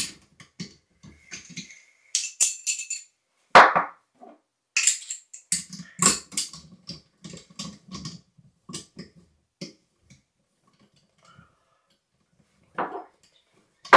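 Handle of a Sloan Royal flushometer being worked by hand: a run of metallic clicks, clinks and rattles. A short, louder burst comes about three and a half seconds in, and another near the end.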